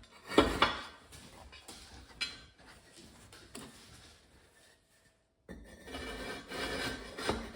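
Steel workpieces being handled: a loud metal clank about half a second in, then lighter knocks and scraping as the pieces are moved and fitted together.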